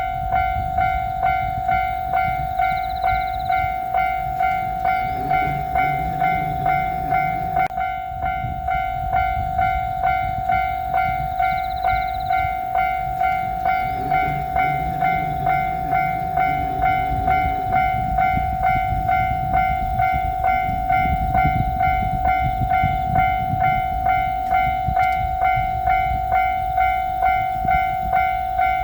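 Japanese railway level-crossing warning bell ringing steadily in its 'kan-kan' rhythm, about three strikes every two seconds, over a low rumble.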